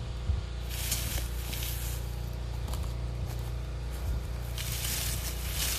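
Dry onion skins and wood-chip mulch rustling as harvested onions are spread out by hand, in two spells of about a second each, over a steady low rumble.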